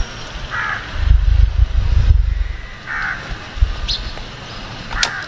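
A bird calling twice, about two and a half seconds apart, over a low rumble, with a sharp click near the end.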